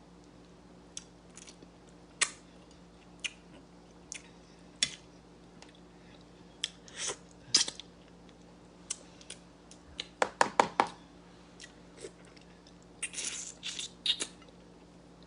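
Eating sounds from a stewed fish head: scattered mouth clicks, smacks and chewing. There is a quick run of clicks about ten seconds in and a denser burst about thirteen seconds in.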